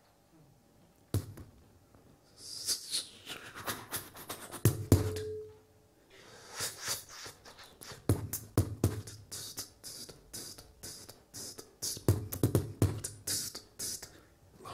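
Solo beatboxing into a handheld microphone. After a near-quiet first second come scattered percussive hits and hissing sounds, then a denser run of quick beats from about six seconds in.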